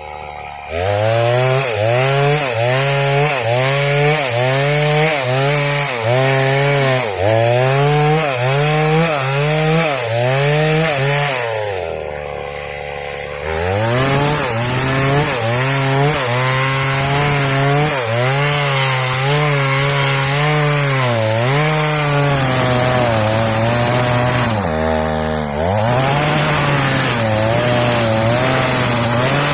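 Stihl MS 381 two-stroke chainsaw ripping through waru wood. The engine pitch sags under load and picks up again about once a second. It drops to idle twice, briefly, then holds at a steady high rev near the end.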